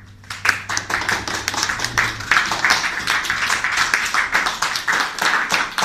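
Audience applauding, breaking out sharply about a third of a second in as a dense patter of hand claps, with a few louder claps close by. Under its first couple of seconds the last held chord of the music dies away.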